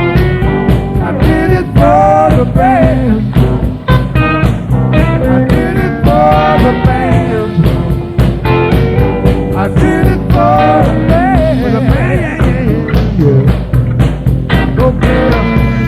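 Blues-rock band playing live, heard through a soundboard recording: electric lead guitar bending notes over bass and drums.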